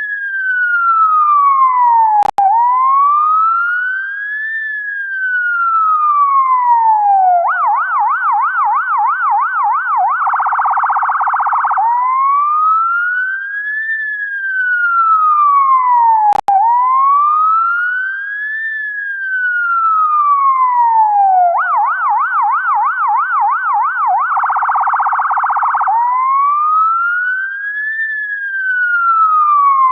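UK ambulance siren cycling through its tones. A slow wail rises and falls over about five seconds, then switches to a fast yelp of about four sweeps a second, then to a brief, very rapid warble, before the wail returns; the sequence comes round twice. A sharp click with a split-second gap in the sound comes a couple of seconds in and again about halfway through.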